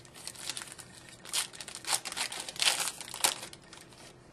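Foil wrapper of a hockey card pack crinkling and tearing as it is opened by hand: a string of short rustling crinkles, loudest in the middle.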